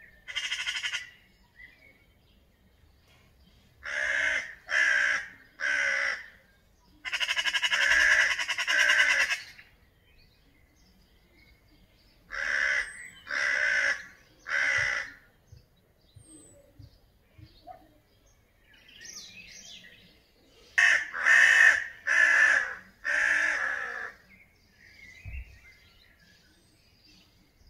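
Crows cawing in alarm at a cat, mobbing it. The harsh caws come in groups of three or four with long gaps between, one of them drawn out, and small birds chirp faintly in the pauses.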